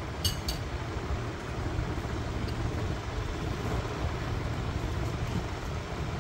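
Steady low rumble, with a brief ringing clink about a quarter of a second in.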